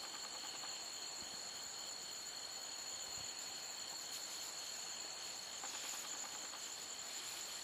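Crickets trilling: a steady, high-pitched insect chorus that keeps going without a break.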